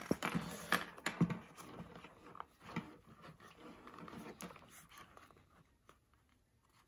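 Handling noise from laser safety goggles being lifted out of their zippered hard case and turned over in the hands: soft rustling of the case's fabric with light clicks and taps of plastic, thinning out to near quiet near the end.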